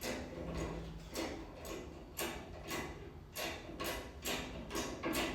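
Bottle jack being pumped to press a steel stringer down: a sharp click about twice a second from the handle strokes.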